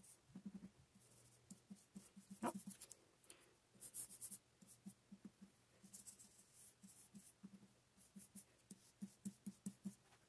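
Faint, quick taps of a foam-tipped stencil brush dabbing ink onto paper through a stencil, with a few soft brushing scrapes.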